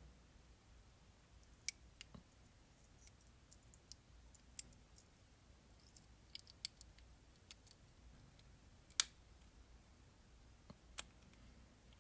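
Small metal parts of a ratchet being handled, giving a scattering of sharp, irregular clicks and taps. The loudest click comes about nine seconds in.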